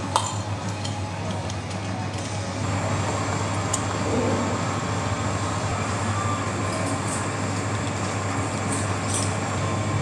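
Steady indoor pub room noise with a constant low hum, broken by a sharp click at the very start and a few faint light clinks later on.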